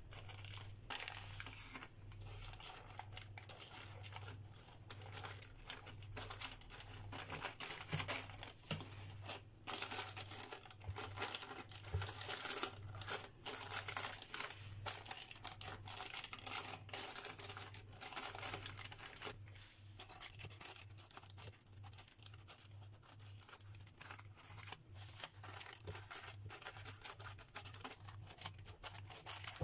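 Parchment baking paper crinkling and rustling in irregular crackles as hands press and crimp pastry dough in a paper-lined pan, over a low steady hum.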